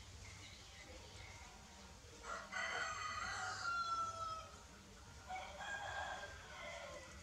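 A rooster crows once, starting about two seconds in: a long call that ends on a held, slightly falling note. A fainter call follows about two seconds later.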